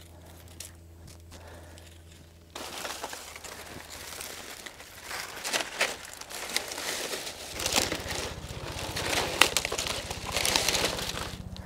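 Dry palm fronds and leaf litter rustling and crackling as they are handled and moved. The sound starts about two and a half seconds in and grows louder, with many sharp crinkles and snaps.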